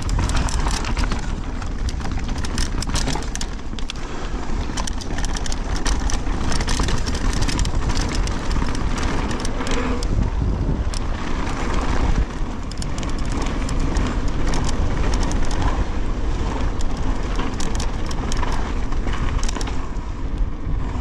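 Mountain bike rolling fast down a dirt and loose-stone trail: tyres crunching over the ground, the bike rattling and clattering with many sharp clicks, and wind buffeting the helmet-mounted action-camera microphone in a constant low rumble.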